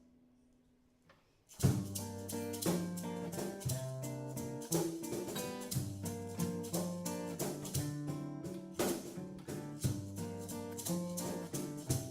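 Instrumental music with a steady beat, starting after a pause of about a second and a half.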